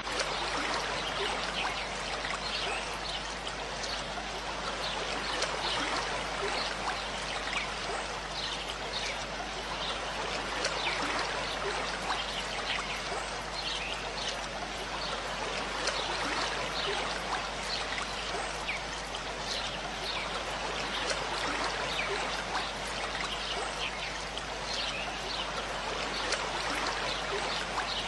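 Steady, water-like rushing noise, with many short high ticks scattered through it.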